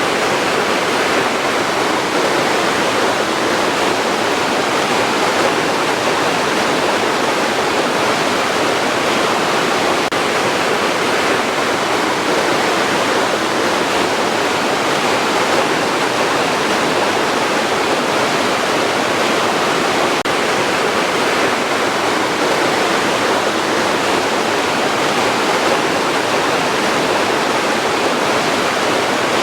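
Rushing water, a steady, even rush with no breaks.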